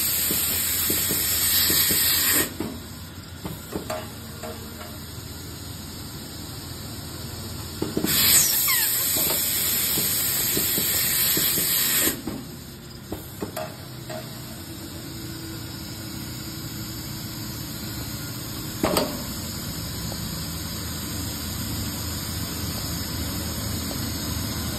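Wire heat-shrink tubing inserting and heating machine at work: two loud stretches of hissing air, each about four seconds, one at the start and one about eight seconds in, with a steady low hum between. Sharp clicks of its moving parts come now and then, the loudest about nineteen seconds in.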